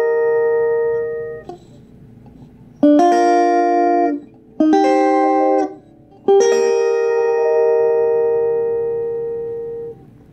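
Squier Stratocaster-style electric guitar playing three-note triad chords on the top three strings, each struck once and left to ring. One chord rings out over the first second and a half. Three more are struck about three, four and a half and six seconds in, and the last rings on, slowly fading, for nearly four seconds.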